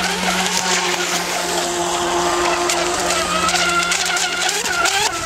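Radio-controlled racing boat's motor running flat out across the water, a steady high whine that wavers slightly in pitch and shifts near the end.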